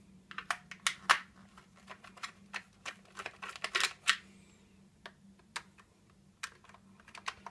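Screwdriver clicking and tapping as screws are undone from the casing of a million-candlepower spotlight torch: a run of sharp, irregular clicks that thin out after about four seconds.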